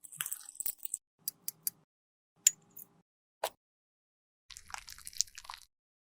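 Crunching and crackling of makeup being worked by hand, with a few separate sharp clicks and a longer crunchy stretch near the end.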